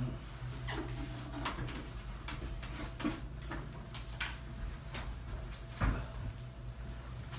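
Surfaces of a dental operatory light being wiped and handled: scattered rubs, small clicks and light knocks, with one louder knock about six seconds in, over a steady low room hum.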